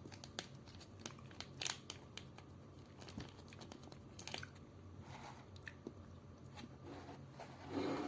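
Close-up eating sounds: a mouthful of chicken curry rice being chewed, with scattered small clicks, over a faint steady low hum.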